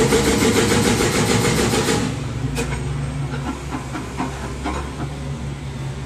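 Excavator-mounted hydraulic breaker hammering concrete in a rapid, even rattle of blows, which stops about two seconds in. The excavator's diesel engine then runs on steadily, with a few light knocks.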